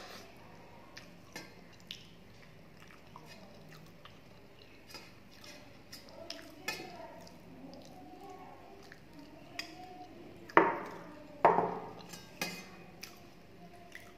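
Eating watery panta bhat by hand from a steel plate: wet squishing and dripping of rice and water, chewing and mouth sounds, and light clinks on the steel plate. Two louder sharp sounds about two-thirds of the way through.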